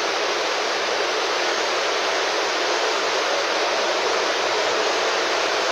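Heavy rain falling on a tarp tent canopy, a steady even rush.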